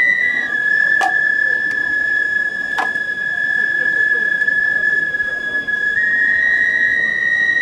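Festival hayashi flute holding one long high note, dropping slightly just after the start and rising back about six seconds in. Two sharp knocks come through, about a second and about three seconds in.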